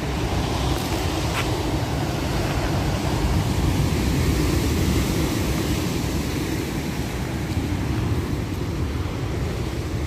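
Heavy storm surf breaking and churning against the shore, a dense, steady low rumble that swells slightly a few seconds in.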